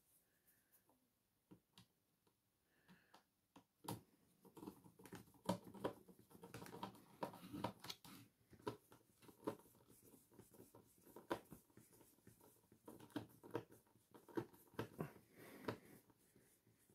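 Faint clicks and scrapes of a hand screwdriver turning a small retaining screw into a Dyson V6 cordless vacuum's plastic body to secure its replacement battery, starting about four seconds in.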